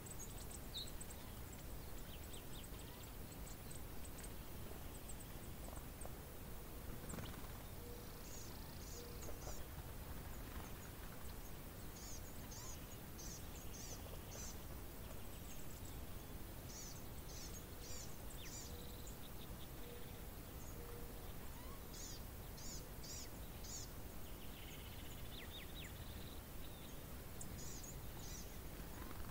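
Faint outdoor ambience with a steady hiss, over which a small bird repeats a quick series of four or five thin, very high chirps every few seconds.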